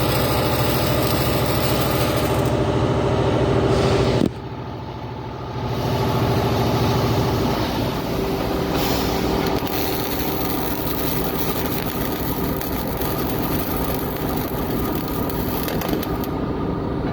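Steady mechanical running noise with a low hum. It drops off suddenly about four seconds in and builds back up about two seconds later.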